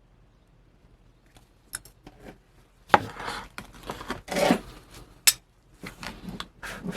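Scraping and rubbing with a few sharp clicks as a resin-printed casting pattern is worked loose and pulled out of packed casting sand. It starts after a quiet second or so.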